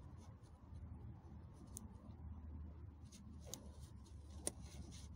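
Faint handling noise as a tape measure is held against a paper target: a low steady rumble with light rustles and small clicks, one sharper click about four and a half seconds in.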